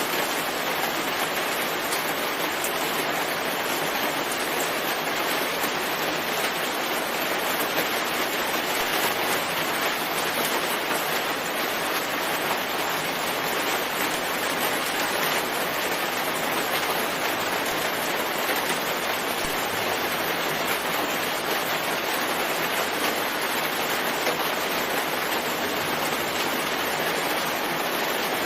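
Steady, even rain noise without a break, a dense hiss of falling rain.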